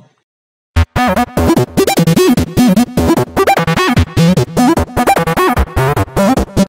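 Electronic intro music: short, choppy synthesizer notes in quick succession, starting just under a second in and stopping abruptly at the end.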